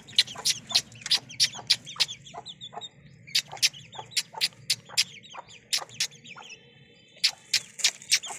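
A hen and her chick at wheat grain: a run of short, sharp sounds, about three a second, broken by two short pauses, with a brief held call about seven seconds in.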